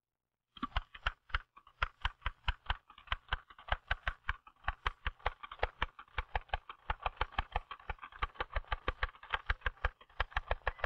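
Typewriter keys struck in a fast, even run of about six strokes a second, starting about half a second in, with only short gaps between strokes.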